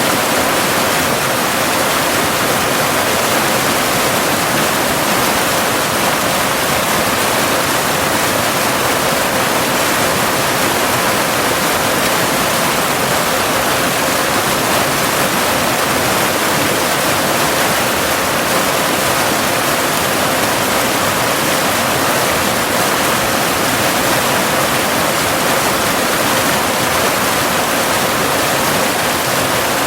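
Steady, unbroken rush of a cascading waterfall, with a thin steady tone near 528 Hz, the carrier of a binaural delta-wave track, mixed in underneath.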